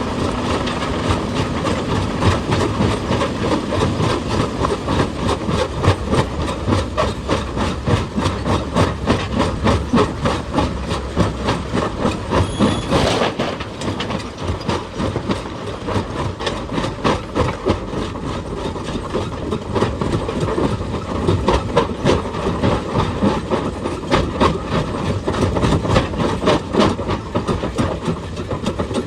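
Heavy machinery working on rock: a diesel engine running under a dense, uneven clatter of rapid knocks and scrapes, with one brief sharp high sound a little before the middle.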